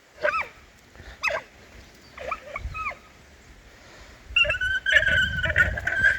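Fighting male alpacas screaming: three short calls falling in pitch, then about four seconds in a long, loud, shrill steady scream, the alpaca's fighting cry.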